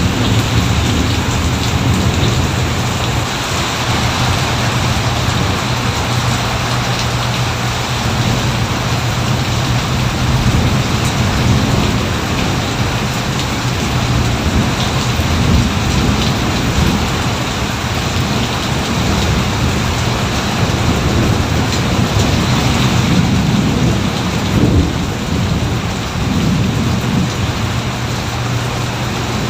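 Heavy steady rain with a continuous low rumble of thunder that swells and fades at times.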